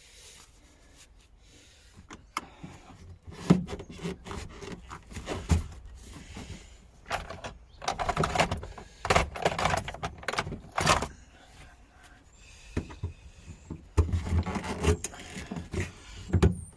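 Hands working on a car to get at its fuel pump: irregular clicks, knocks and rattles of tools, fittings and parts being handled, sparse for the first couple of seconds and then busy.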